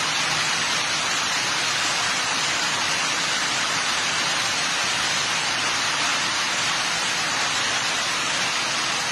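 Heavy rain pouring steadily onto a grass lawn and garden plants: an even, unbroken hiss.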